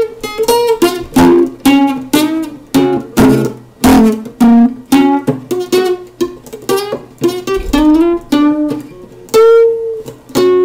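Steel-string acoustic guitar picked by hand: a run of single plucked notes and small chords, each starting sharply and ringing briefly, with a longer held note near the end.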